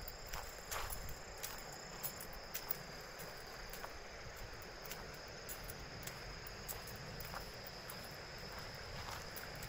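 Insects trilling steadily at one high pitch, with scattered light footfalls and crunches on a dry dirt path.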